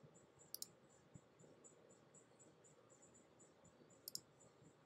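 Near silence with two quick double clicks of a computer mouse, about half a second in and again near the end. Under them a faint high-pitched tone pulses about four times a second.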